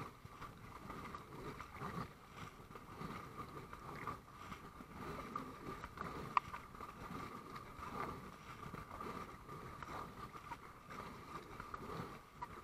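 Double-bladed paddle strokes dipping and pulling through calm water beside an inflatable kayak, a soft swish and splash about every two seconds, with one sharp click about halfway through. A faint steady high-pitched tone runs under it.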